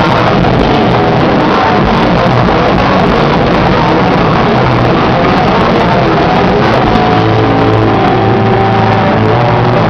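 Rock band playing live at high volume: a dense, unbroken wall of sound with no pauses.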